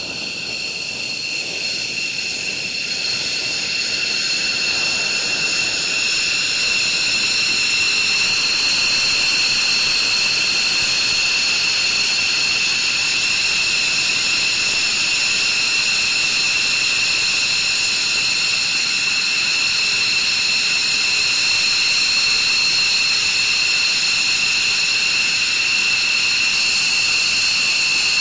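F-15C Eagle's twin Pratt & Whitney F100 turbofan engines running at idle as the jet taxis in, a steady high-pitched whine over a rushing hiss that grows louder over the first few seconds and then holds.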